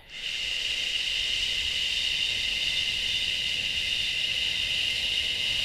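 A woman's long, steady "shh" exhaled on a single breath: the Taoist healing sound for the liver.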